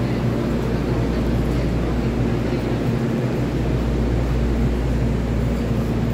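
Steady low hum of an EMU3000 electric multiple unit standing at the platform with its doors open.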